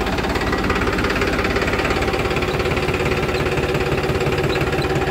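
Farmtrac 45 tractor's three-cylinder diesel engine running at a steady speed while powering a spray machine. It does not hunt: the engine note holds even, with no rise and fall in speed.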